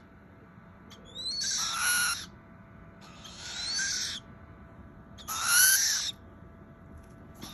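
Spix's screech owl chicks giving three raspy, hissing calls, each about a second long with a slight upward slide, typical of owlets begging for food.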